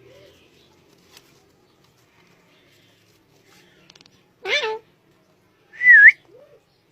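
A short meow-like call, then about a second and a half later a loud, short whistle that dips and rises in pitch, followed by a faint small call.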